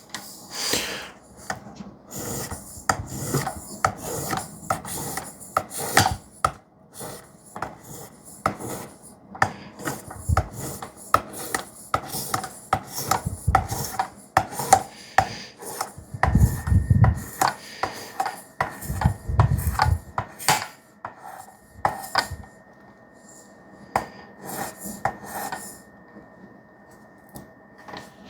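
Sharpening stone of a Work Sharp guided sharpener stroked again and again along the steel edge of a 3V-steel Demko knife: quick, irregular scraping strokes. There are a few louder low thuds around the middle.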